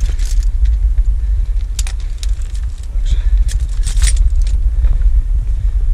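Wind buffeting the microphone as a heavy, steady low rumble, with scattered sharp clicks and metallic clinks from the climber's handling and gear as he scrambles up rock.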